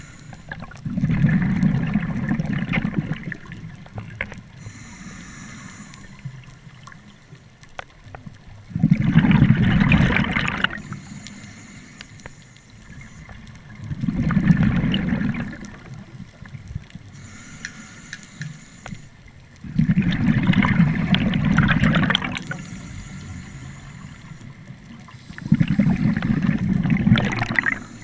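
Scuba diver breathing through a regulator underwater: five bubbling rushes of exhaled air, each about two seconds long and coming every five to six seconds, with faint hissing inhalations through the demand valve in between.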